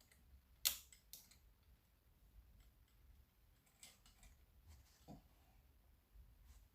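Plastic parts of a cordless mop being handled and pushed together: a sharp click less than a second in, then a few faint knocks.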